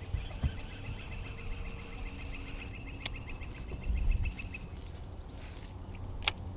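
A bird trilling: a long run of rapid high notes at one pitch for about three and a half seconds. Later comes a brief high hiss and a couple of sharp clicks.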